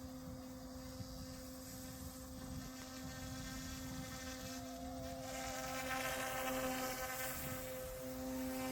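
Goosky S1 small electric RC helicopter hovering: a steady, buzzing whine from its motors and rotors, growing louder and fuller about five seconds in.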